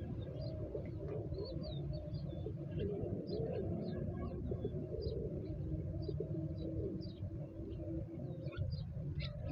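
Birds calling outdoors: many short, high chirps throughout, over lower, wavering calls, with a steady low rumble underneath.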